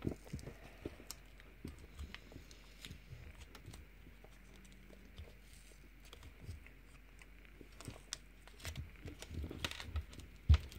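Faint crinkling and tearing of a kiwi Hi-Chew candy stick-pack wrapper being peeled open, with scattered small clicks of fingers on paper and foil. Near the end the rustling gets busier and there is one sharp knock as the pack is shaken.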